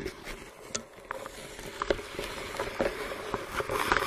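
Irregular underwater clicks and crackling, coming thicker and louder near the end: reed stems scraping and knocking against a spearfisher and his gear as he pushes through a dense reed bed.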